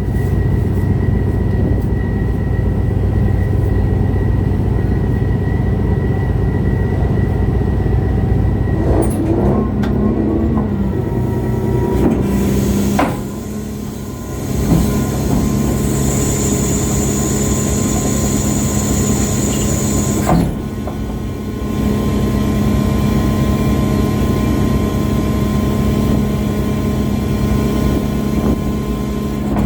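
Steady low drone of a ship's engine running, with its tone changing sharply about 13 and 20 seconds in. A thin high whine joins it for a few seconds in the middle.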